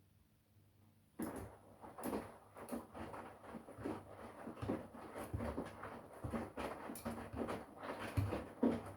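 Front-loading washing machine drum starting to turn again about a second in, after a pause: wet laundry tumbling and water sloshing, with irregular soft thumps.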